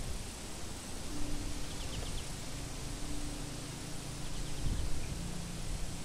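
Steady wind rushing through grass and trees, with a low gust buffeting the microphone near the end, over a faint hum of distant road traffic. Two short runs of faint quick chirps come through.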